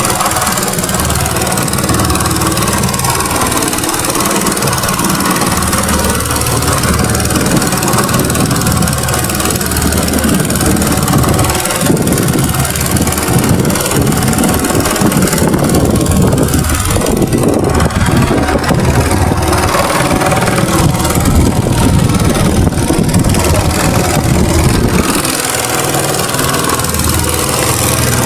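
A boat's engine running steadily under way, with a rushing noise over it that swells in the middle and drops back sharply near the end.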